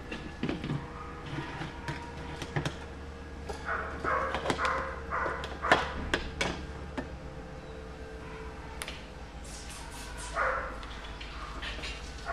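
A few short whines from a small dog among scattered light clicks and taps.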